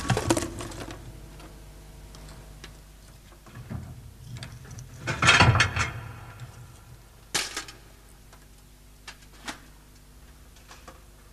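Scattered knocks and clatter of actors and props moving on a wooden stage: a burst of knocks at the start, the loudest cluster about five seconds in, a single sharp knock a little later and a few light ticks after it.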